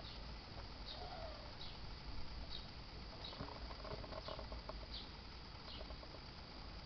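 Russian blue cat lapping milk, a soft quick ticking in the middle of the clip. Faint short high chirps repeat a little more often than once a second throughout.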